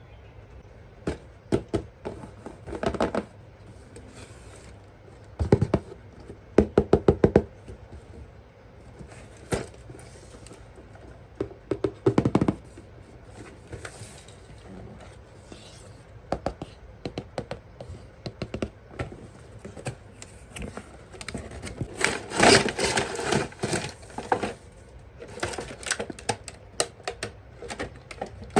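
Plastic toys and packaging being handled: irregular clicks, knocks and short rattles, with a dense run of rapid clicking about 22 seconds in.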